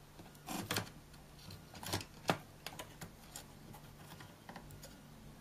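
Small plastic clicks and rattles of wire connectors being handled on a projector's power supply board. The clicks are irregular: a cluster about half a second in, the loudest just after two seconds, then fainter ticks.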